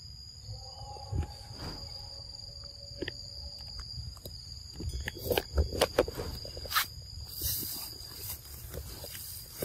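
Steady high-pitched insect drone in forest, with a cluster of sharp clicks and rustles from about five to seven seconds in.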